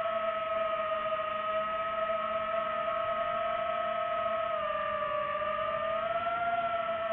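DJI FPV drone's motors and T-Motor T5143S propellers whining steadily in flight. The pitch dips slightly about five seconds in, then rises again with the throttle.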